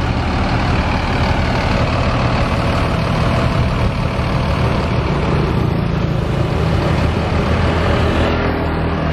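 Mercedes-Benz coach's rear-mounted diesel engine idling steadily with its engine hatch open. By the owner's account the engine is still not healthy and lacks power on steep climbs.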